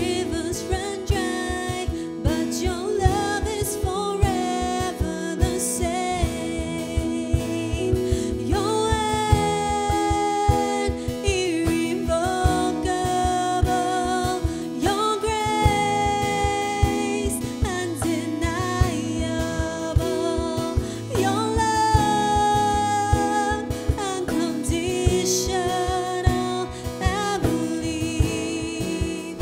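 Live worship band playing: a woman sings the lead melody over acoustic guitar and a steady cajon beat.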